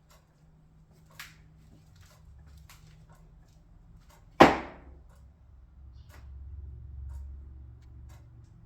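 Frigidaire Gallery refrigerator cabinet giving one sudden loud bang about halfway through, with a short ringing decay over its low running hum. This is the loud popping noise that the owner says recurs every 3 or 4 hours. A small click comes a few seconds before the bang.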